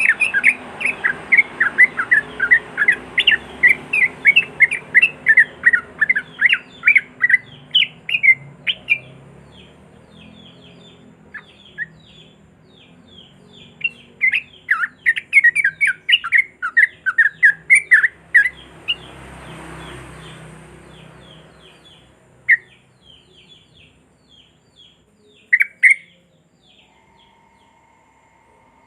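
Yellow-vented bulbul (trucuk) singing its rapid rolling 'ropel' song, long runs of sharp chirping notes at about five a second, twice, then a few scattered single notes near the end.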